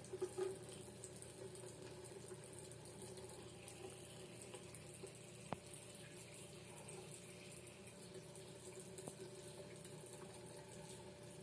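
Water tap running steadily into a sink, a thin stream. One faint click about halfway through.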